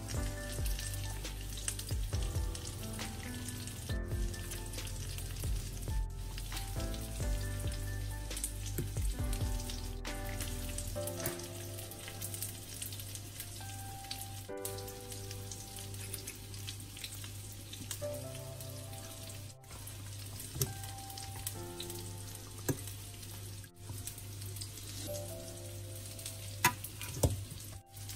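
A fork mashing oily baked feta and roasted cherry tomatoes in a glass baking dish: steady wet, crackling squelch with sharp clicks of the fork against the glass, a few louder ones near the end. Soft background music plays throughout.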